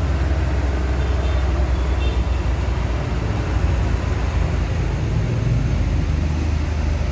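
A vehicle engine idling: a steady, low, evenly pulsing rumble.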